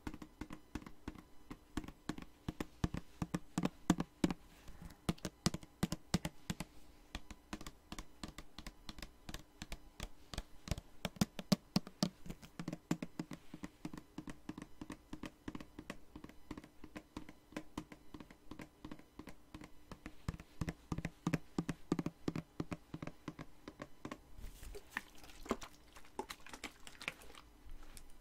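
Fingers tapping quickly and irregularly on a spray bottle, many small taps a second. Near the end a soft hissing rustle runs for a few seconds.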